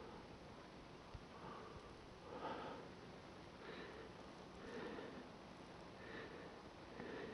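Faint breathing close to the microphone, a soft breath about once a second, over a low steady hiss.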